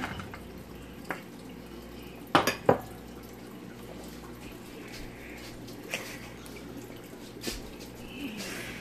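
Sliced sausage tipped from a glass bowl into a nonstick frying pan, with scattered knocks of glass and pan being handled. The loudest are two sharp knocks close together about two and a half seconds in.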